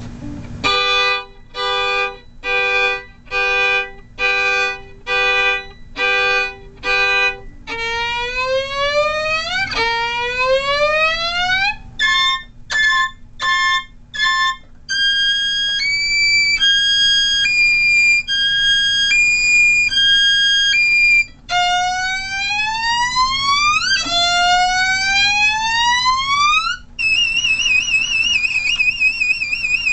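Violin imitating a car alarm's cycle of tones. It plays a repeated pulsing note, then upward sliding glides, a run of quick short notes, a two-note back-and-forth, more rising glides, and a warbling trill near the end.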